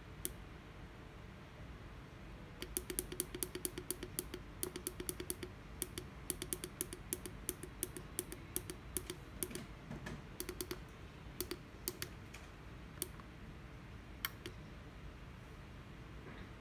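Push buttons on a Maxwell FT200 PID temperature controller's front panel clicking as they are pressed in quick runs, several clicks a second, while stepping through its settings menu. The runs stop about thirteen seconds in, and a couple of single clicks follow.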